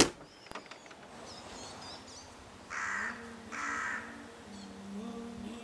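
A crow cawing twice, each call about half a second long, over woodland ambience with faint small-bird chirps. A brief loud swell of noise opens it, and low held tones of music come in near the end.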